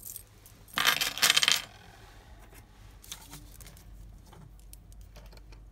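A handful of chrome keyrings and metal key blanks dropped onto a wooden table, clattering for about a second. Faint light taps and handling noise follow.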